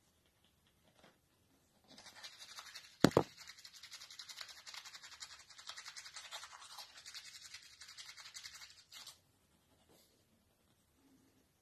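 Toothbrush scrubbing teeth in quick back-and-forth strokes, starting about two seconds in and stopping about nine seconds in. There is a sharp knock about three seconds in, the loudest moment.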